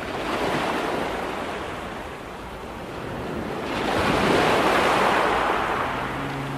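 Surf washing in and drawing back, a rushing wash of water that swells twice. Faint music notes enter near the end.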